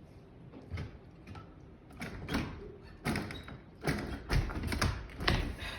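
A stiff, hard-to-open door being worked open, with a run of knocks, thumps and latch or handle clicks that grow busier toward the end.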